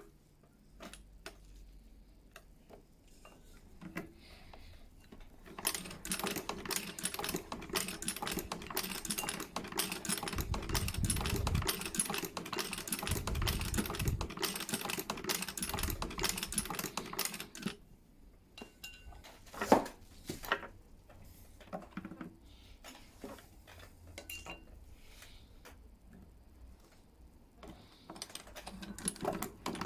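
Antique walking foot sewing machine stitching: a fast, even clatter of the mechanism starts about six seconds in and runs for about twelve seconds, then stops, leaving scattered clicks and one sharp knock, before stitching starts again near the end.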